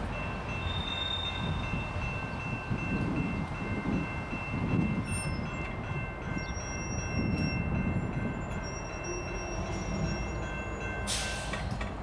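EJ&E SD38-3 diesel road switcher approaching slowly with a string of hopper cars, its engine rumbling low, with a steady high ringing over it. Near the end the ringing stops with a sharp noise, followed by a quick run of clicks.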